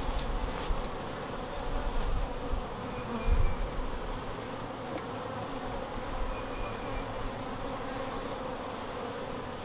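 Honeybees buzzing steadily around an opened hive, with a few low bumps in the first few seconds.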